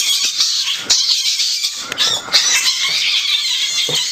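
Fennec fox giving a continuous high-pitched squealing chatter, mixed with scuffling and sharp little clicks.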